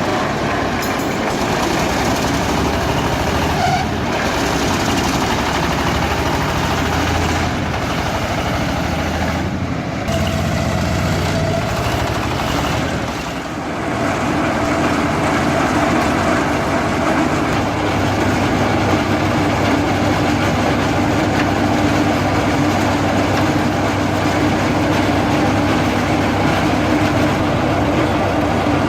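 Engine of a mobile red-brick press machine running steadily, with a brief dip in level about halfway through.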